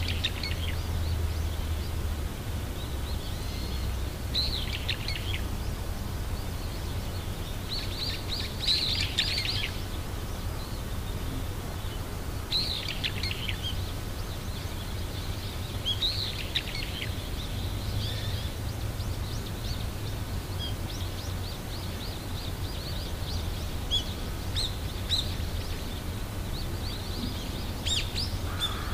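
Small songbirds chirping in short high twittering phrases every few seconds, growing busier near the end, over a steady low rumble.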